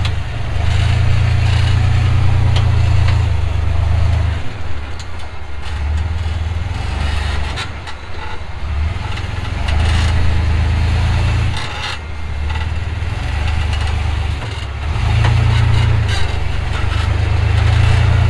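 Rock-crawling buggy's engine working under load, the revs swelling and dropping every few seconds as it climbs over rock, with a few sharp knocks along the way.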